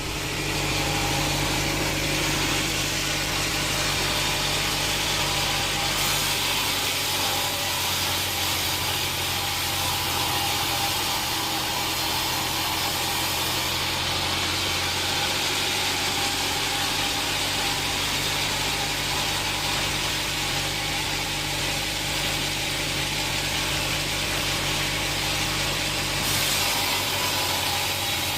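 Sawmill machinery running steadily: an engine hum with a continuous high hiss over it, with no break.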